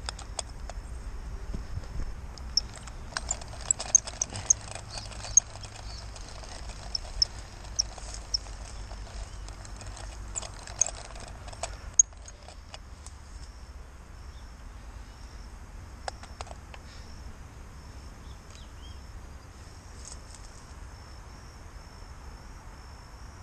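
Outdoor wildlife chirping: many short, high-pitched chirps, thickest in the first half, then a fainter repeating trill, over a low steady rumble.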